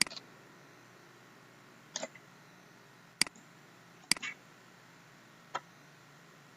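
Computer mouse clicking: about five separate sharp clicks a second or so apart, two of them followed quickly by a second click, over faint room hiss.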